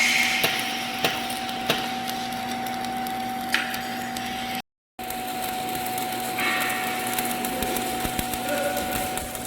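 Angle grinder running steadily on a metal pipe: a constant whine over a grinding hiss, with a few sharp ticks. It cuts out abruptly in the middle and starts again.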